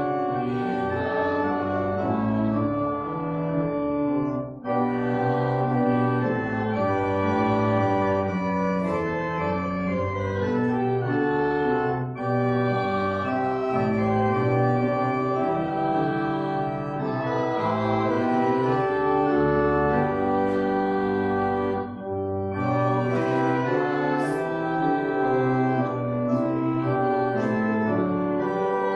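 Church organ playing a slow piece in sustained chords, with three brief breaks between phrases.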